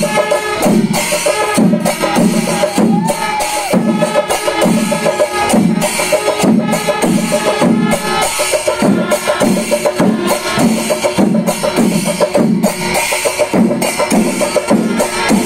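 Kerala chenda melam: chenda drums beaten with sticks in a steady, driving rhythm, deep strokes falling about every two-thirds of a second, over continuous ringing from ilathalam brass cymbals.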